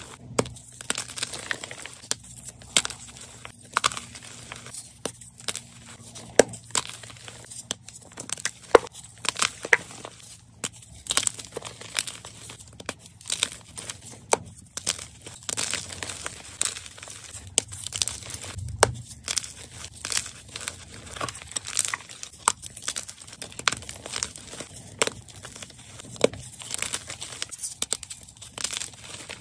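Blocks of dyed gym chalk crushed and crumbled by hand: dry, crisp crunching with many sharp cracks as the blocks break apart into powder.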